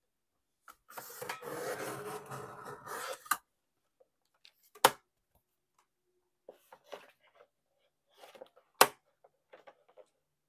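Fiskars paper trimmer cutting through a collage board: the blade carriage is drawn along its steel rail for about two and a half seconds with a steady rasp, ending in a click. Paper scuffs and two sharp clicks follow as the board is shifted on the trimmer bed.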